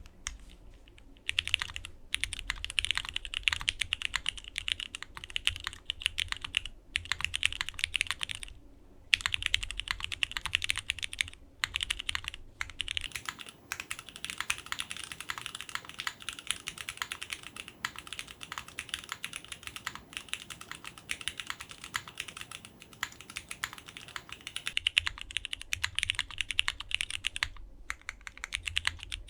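Fast, continuous typing on a 65% mechanical keyboard with Cherry MX2A Black linear switches, an aluminium plate, no foam and ABS doubleshot keycaps: dense rapid keystroke clacks, broken by a few brief pauses.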